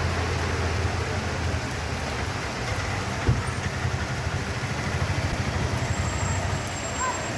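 Strong wind blowing and buffeting the microphone: a steady rushing noise over a deep rumble. A single knock comes a little over three seconds in.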